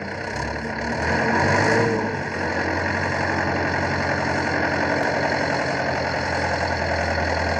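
Tractor engine running under load as it hauls a tank trailer through deep mud, loudest for about a second near the start and then a steady drone.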